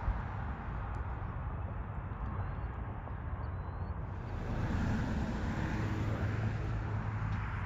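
Jet engine noise of an airliner arriving on approach, a steady rumble that swells a little about five seconds in.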